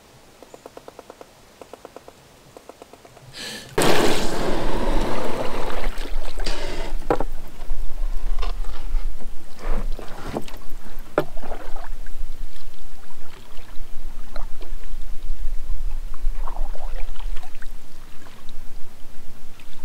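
Water splashing and sloshing, starting loudly about four seconds in, with several sharp separate splashes and a low rumble underneath. Before that, only faint quick ticking.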